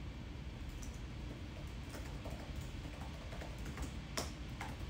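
Computer keyboard typing: a few irregular key clicks over a steady low background hum.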